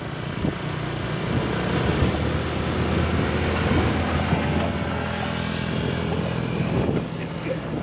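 Small motor-scooter engine running steadily while riding, with road and wind noise.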